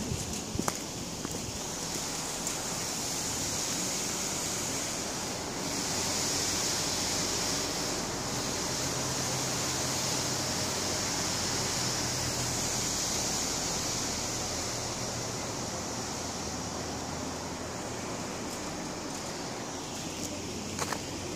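Steady outdoor background noise, an even hiss with a faint low hum in the middle and no distinct event; a few soft clicks near the end.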